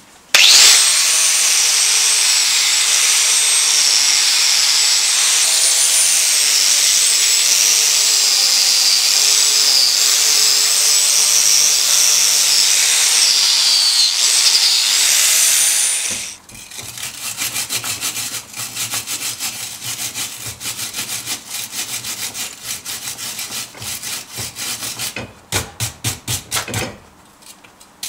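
A power grinder runs against the steel piece for about fifteen seconds, its whine wavering up and down in pitch as it is pressed on, then stops. A hand wire brush then scrubs the steel in quick back-and-forth strokes, several a second, with a few louder strokes near the end.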